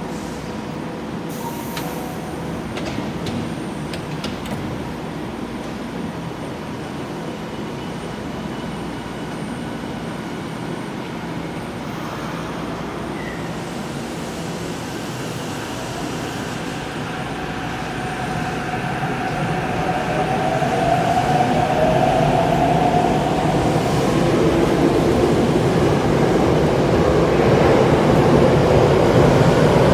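Tokyo Metro 7000 series train departing an underground station. After a stretch of steady low rumble while it stands, the electric traction motors start a whine that rises in pitch about halfway through, and the running noise grows steadily louder as the train picks up speed.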